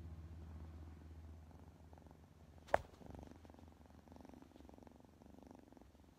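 Long-haired cat purring close to the microphone, a steady low rumble. A sharp knock a little under three seconds in as the cat knocks the phone over.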